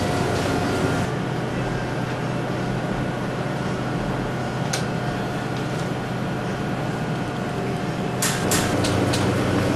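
Steady machine-like hum with a faint whine, broken by a sharp click about five seconds in and a quick run of clicks near the end.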